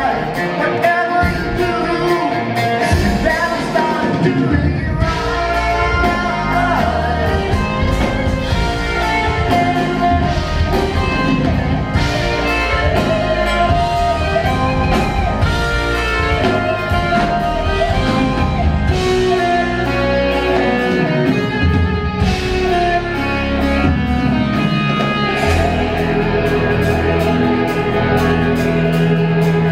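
Live progressive rock band playing loudly, with electric guitar, drum kit and a singing voice, recorded from the audience on a compact camera's built-in microphone.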